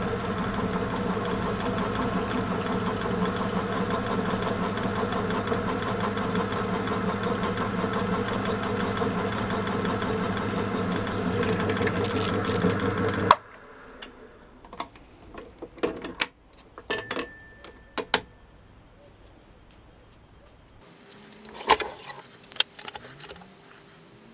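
Bench drill press motor running steadily while the bit drills a hole through a metal dial blank, stopping abruptly a little over halfway through. After it, a few light metallic clicks and clinks from parts being handled.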